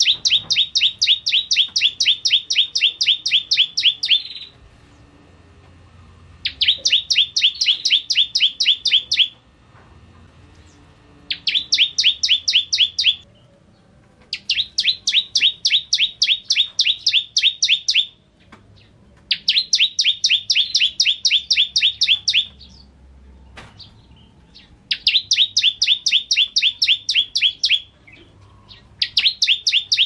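Ciblek kristal, a bar-winged prinia, singing its song in repeated bursts of rapid, sharp, evenly spaced notes, each burst lasting two to four seconds with short pauses between, about six bursts in all.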